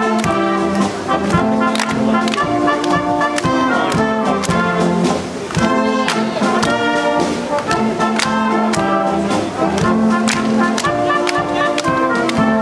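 Live Banat Swabian village brass band playing a Danube Swabian folk dance tune: brass melody and harmony over a regular beat.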